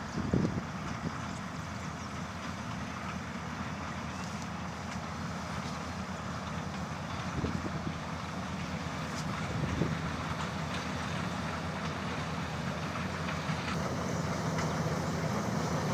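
World rice combine harvester running steadily under load, with a few brief knocks along the way and the sound growing slightly louder near the end.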